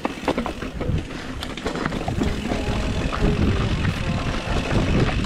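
Mountain bike descending a rough dirt trail, recorded on the bike's action camera: a steady rumble of wind on the microphone and tyres on dirt and rock, with the bike clicking and rattling over bumps, several knocks near the start.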